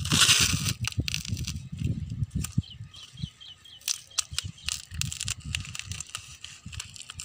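Scissors snipping through a parcel's plastic-sack wrapping, with the plastic crinkling and a run of short, sharp clicks.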